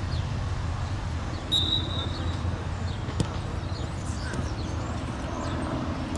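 Referee's pea whistle blown once for the kick-off, one short shrill blast about a second and a half in. A single sharp knock of the ball being kicked follows about three seconds in, over a steady low outdoor rumble.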